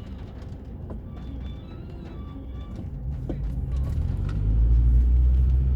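Low engine rumble of a motor vehicle, swelling about halfway through and then staying loud and steady.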